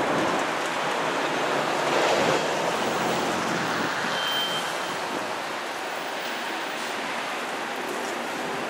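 Rosenbauer RTX electric fire engine moving off slowly: a steady rushing hiss of tyres and running gear, with no engine note or siren. It is loudest about two seconds in and eases a little as the truck pulls away.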